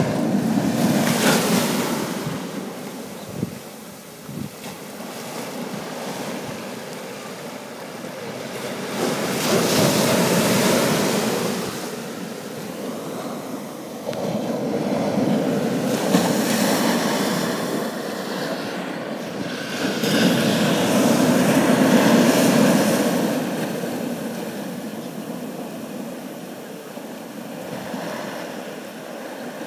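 Ocean surf breaking on rocks, rising and falling in slow surges every several seconds.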